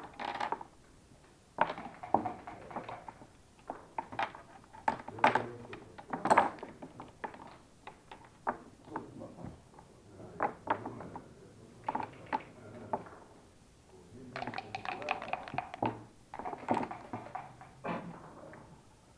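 Backgammon being played: dice rattled and thrown, and checkers clicked down on the board, with a few rattling stretches about a second long among many sharp clacks.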